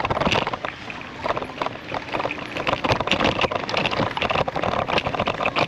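E-bike riding over a bumpy dirt trail: a dense, irregular run of rattles and knocks from the bike and its tyres on the rough ground.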